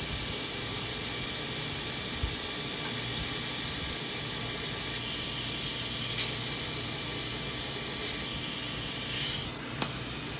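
Compressed air hissing steadily through a digital tire inflator into an aired-down 37-inch mud-terrain tire, fed from an Ingersoll Rand T30 shop compressor's tank as the tire is pumped back up toward 30 psi. Short sharp bursts of hiss come about six seconds in and again just before the end.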